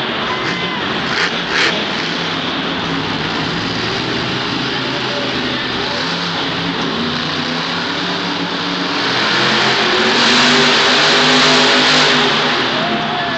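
Bulldozer monster truck's supercharged V8 engine running hard and revving up and down, with a couple of sharp bangs about a second and a half in. The sound swells louder for a few seconds near the end.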